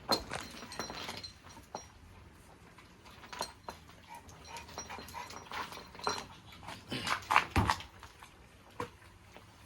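A dog whimpering in short high whines, with scattered clinks and knocks, the loudest a little past seven seconds in.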